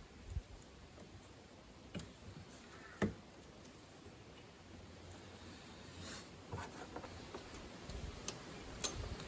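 Scattered faint clicks and knocks of hands working HT lead boots off an ignition coil pack, the loudest knock about three seconds in and a small cluster near the end.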